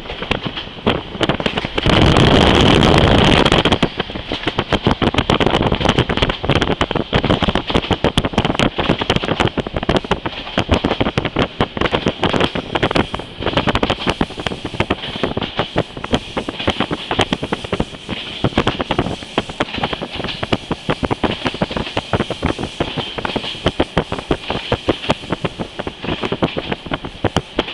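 Passenger train running at speed, heard from inside a carriage: wheels clattering over the track in dense rapid clicks over a steady rushing hiss. About two seconds in, a sudden louder rush of noise lasts just under two seconds, then the clatter goes on.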